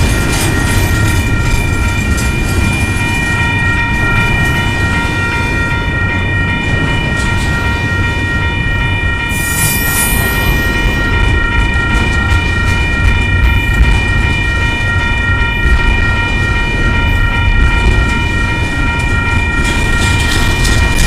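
Double-stack intermodal container cars of a freight train rolling past at close range with a steady low rumble, over a continuous high ringing tone made of several pitches. A short hiss comes about ten seconds in.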